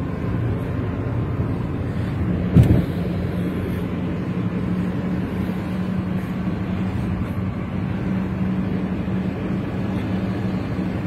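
Steady road and engine noise heard from inside a moving car's cabin, a low drone with a constant hum. A single thump about two and a half seconds in.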